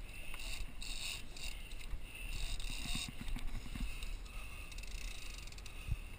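Big-game fishing reel working on a hooked marlin: short spurts of hiss from the reel and line, then fine rapid clicking near the end, over the low steady rumble of the boat.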